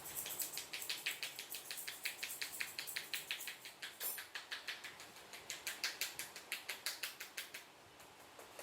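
Barber's hands striking rapidly during a head massage: a fast, even run of crisp slaps, about five a second, that stops a little before the end.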